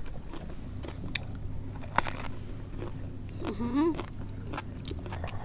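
Close-up chewing and crunching of food, with sharp crunchy clicks scattered throughout. A short rising whine-like vocal sound comes about three and a half seconds in.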